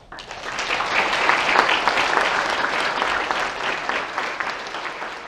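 Audience applauding, swelling within the first second and then slowly tapering off.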